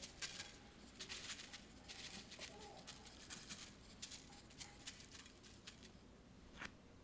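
Granulated sugar sprinkled by hand onto banana slices in a metal baking tray, a soft pattering hiss that comes in short spurts for about six seconds. A single light tick near the end.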